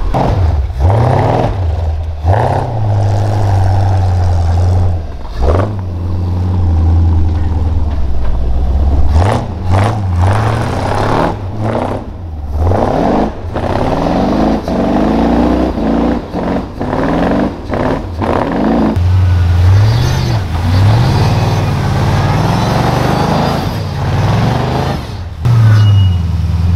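Flat-fender Jeep's engine revving up and dropping back again and again as the rig crawls up a snowy slope on large off-road tyres, working under load.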